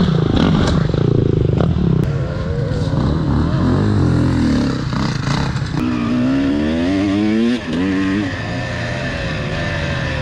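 Dirt-bike engines revving hard: first an enduro bike on the throttle as it climbs a step obstacle, then a 2001 Honda CR250's two-stroke single accelerating along the track, its pitch rising in repeated sweeps with a brief drop at a gear change about three-quarters of the way through.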